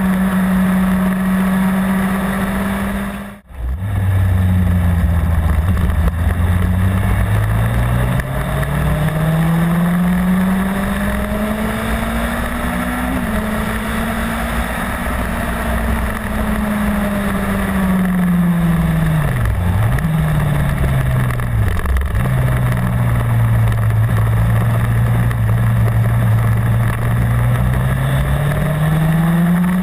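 Honda CBR600 inline-four engine pulling a motorcycle along at road speed, over a steady rush of wind. The engine note climbs slowly over several seconds, dips sharply twice about two-thirds through, holds at a lower steady pitch, then rises again near the end. The sound cuts out briefly a few seconds in.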